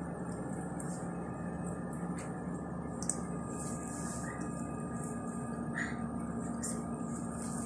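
Steady background hum with a few faint clicks and rustles from a canvas drawstring bag being handled and smoothed flat.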